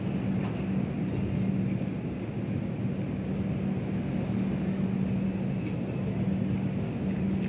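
Passenger train of the 19031 Yoga Express moving through a station, heard from alongside its coaches: a steady running rumble with a constant low hum.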